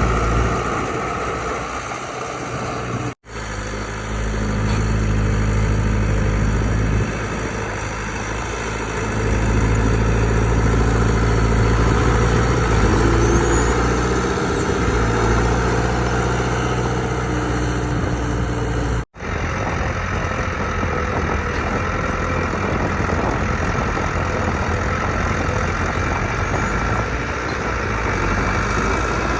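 Heavy diesel engines of earthmoving machinery running under varying load, the low engine note rising and falling. The sound cuts out for an instant twice.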